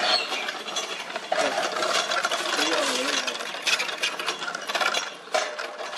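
Homemade pedal drive built from an angle grinder's gear head being pedaled, its gears and rebar propeller shaft giving a fast, steady mechanical rattle.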